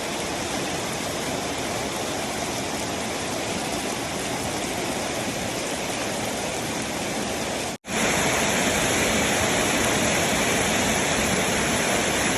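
Heavy rain pouring down in a steady hiss. It cuts out for an instant about eight seconds in, then carries on slightly louder.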